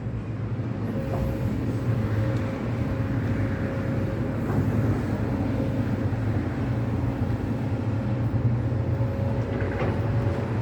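Heavy demolition excavator's diesel engine running steadily under load, with a thin steady hydraulic whine over the engine drone and a few faint knocks.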